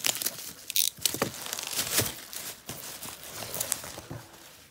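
Plastic bubble wrap crinkling and crackling as it is pulled open by hand, a dense run of crackles that dies away near the end.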